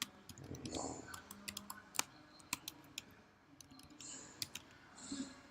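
Computer mouse clicking: a dozen or so short, sharp clicks scattered unevenly, the loudest about two seconds in.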